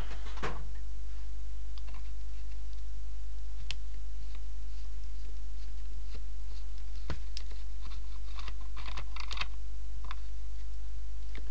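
Hand screwdriver working screws in a plastic cordless drill housing: scattered small clicks and scrapes of the tip in the screw heads and against the plastic casing. A sharper click comes about seven seconds in, and a quick run of clicks follows a second later.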